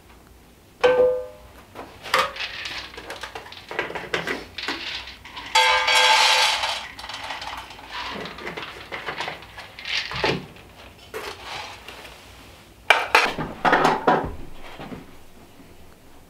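Cookware and dishes being handled: metal pots, pans and utensils clinking and clattering in a run of separate knocks. There is a sharp ringing metal strike about a second in and a longer ringing sound around the middle.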